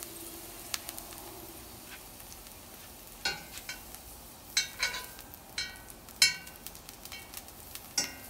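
Oil sizzling quietly in a cast iron skillet with a sprig of rosemary. In the second half, metal tongs clink and scrape against the pan about eight times, each with a short ring.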